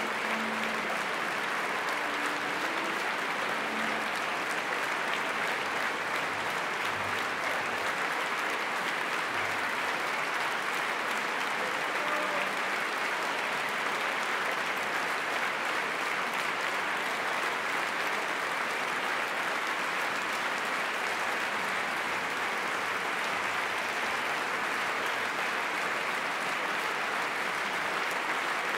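A large concert-hall audience applauding steadily after an orchestral performance.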